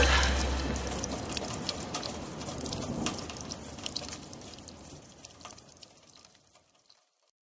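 Recorded rain with scattered raindrop patters, fading out over about six seconds, while the last low note of the music dies away in the first second.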